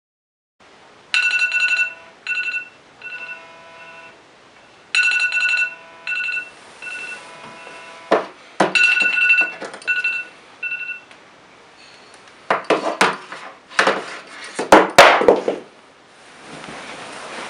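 Mobile phone alarm playing a chiming ringtone melody of short repeated high notes, stopping about eleven seconds in. Then loud rustling and thumps of bedding as someone turns over and pulls the duvet up.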